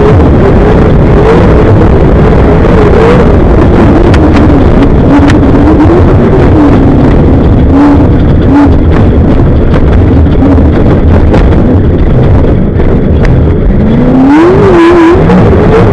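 Class 1 desert off-road race car's engine running loud under load, its pitch wavering with the throttle, sagging in the middle and climbing again near the end. Scattered sharp knocks and clicks sound over it.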